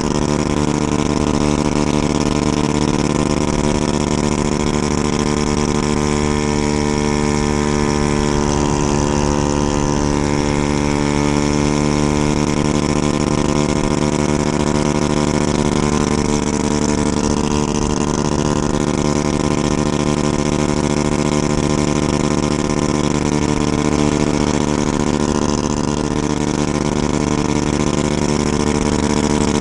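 Honda Ruckus scooter's 49cc single-cylinder four-stroke engine running at a steady pitch while cruising on the highway, with wind rushing over the microphone.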